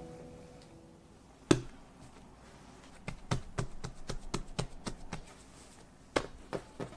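A hand pressing and patting a ball of bread dough on a floured wooden board to knock the air out: a quick run of short pats, about four or five a second, with a few more near the end. One sharper knock comes about a second and a half in.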